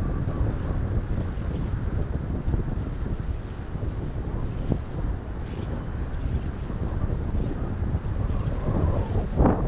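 Wind buffeting the microphone: a steady low rumble with no engine or fan whine standing out, and a brief louder gust near the end.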